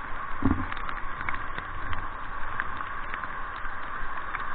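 Rushing whitewater river running steadily over shallow rocky rapids around a raft, with a brief low thump about half a second in.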